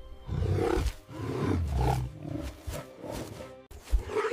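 A wild animal growling and snarling in a series of rough bursts, a threat display at the start of a fight, with music underneath; a sharp thump comes near the end.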